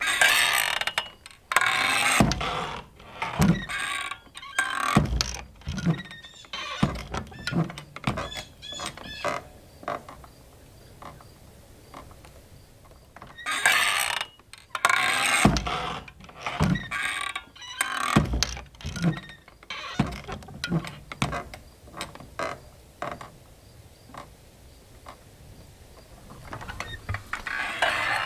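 Saloon-style swinging doors creaking on their hinges and knocking as they swing back and forth, in two busy bouts with quieter creaks between.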